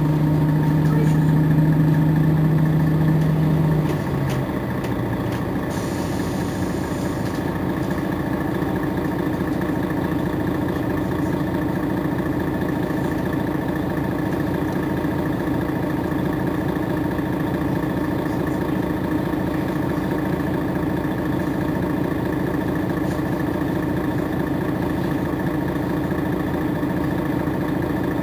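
Mercedes-Benz Citaro G C2 articulated bus engine idling steadily while the bus stands still. A deeper hum in the first four seconds fades away, and a brief faint hiss comes about six seconds in.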